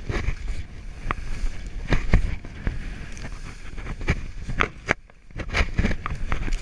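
Skis hissing and swishing through powder snow during a downhill run, with wind rumbling on the body-worn camera's microphone and scattered knocks and clicks from the skis and poles. The noise drops briefly about five seconds in.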